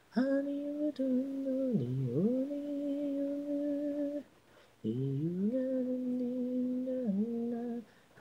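Solo female voice singing unaccompanied, an isolated a cappella vocal: two long held notes separated by a short break, the first swooping down in pitch and back up partway through.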